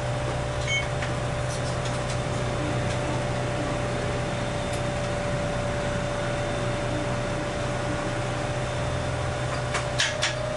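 Steady electrical hum inside a standing Iyotetsu streetcar, with a low drone and a thin steady tone from its onboard equipment. A few sharp clicks come near the end.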